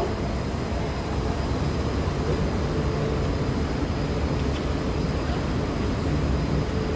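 Steady low rumble of vehicle or machinery noise with a faint steady hum over it, even throughout with no distinct events.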